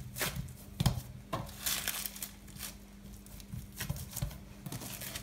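Plastic cling film crinkling and rustling in irregular bursts as hands press cookie dough flat onto it.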